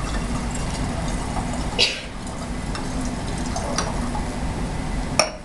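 Small glass clinks and liquid sounds as potassium hydroxide pellets are stirred into water in a glass beaker with a glass rod. A brighter clink comes a little under two seconds in and a sharp click just before the end, over a steady background hiss and low hum.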